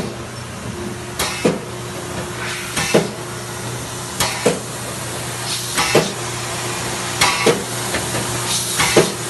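Industrial machine running in a steady cycle about every second and a half: each cycle is a short hiss of air followed by a thump, over a constant mechanical hum.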